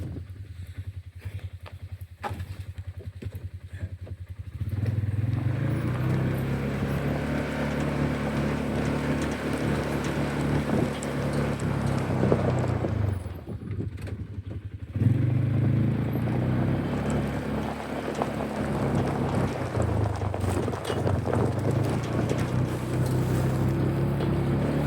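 A vehicle engine running: quieter and pulsing at first, then louder and steady from about five seconds in. It drops away for a couple of seconds around the middle, then runs on.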